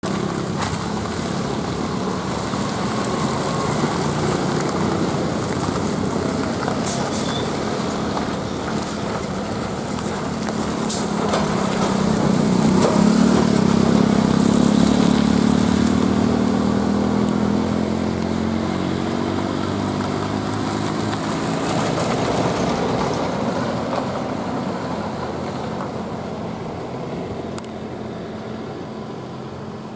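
MSRTC bus engine running at low speed through a tight hairpin U-turn. It grows loudest about halfway through as the bus passes closest, its note rises a little as it pulls away, and it then fades.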